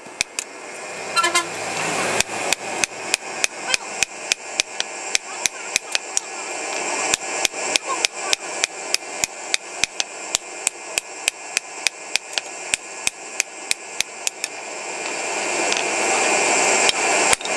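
Hand hammer striking a hoe blade on a steel block anvil in quick, even blows, about three to four a second, each with a short metallic ring. A steady hiss under the blows grows louder in the second half.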